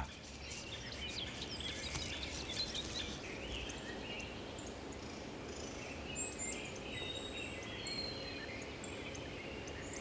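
Faint outdoor nature ambience: a steady low hiss with scattered short bird chirps and twitters, and a brief thin whistle about eight seconds in.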